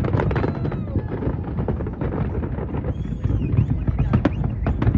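Fireworks bursting and crackling in dense, irregular rapid cracks over a continuous low rumble, with a crowd's voices underneath.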